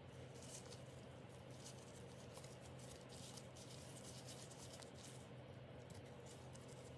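Faint steady low hum of an air conditioner, with soft, irregular scratching and rustling sounds over it.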